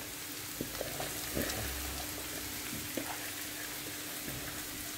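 Low, steady sizzle of onions frying in oil in a pan, with a few soft ticks and rustles as handfuls of shredded cabbage drop onto them.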